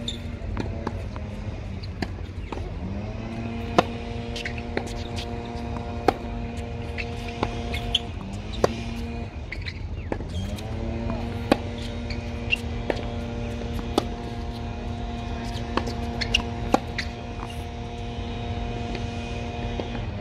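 Tennis rally: sharp pops of a tennis ball struck by rackets every couple of seconds, over a steady low rumble. Twice, a motor's pitch rises and then holds steady for several seconds.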